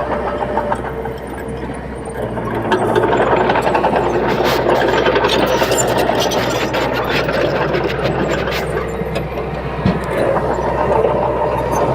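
Komatsu D21P small crawler bulldozer working, its diesel engine running steadily and growing louder about three seconds in, with a quick run of sharp metallic clanks in the middle.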